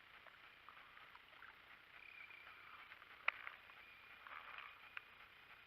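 Near silence: faint creekside background, with a sharp click a little over three seconds in and a softer one near five seconds.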